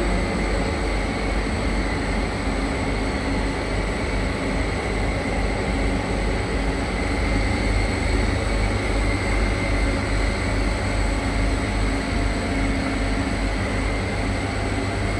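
Steady mechanical hum with a constant hiss and a few faint high whining tones, unchanging throughout, like air conditioning or other machinery running.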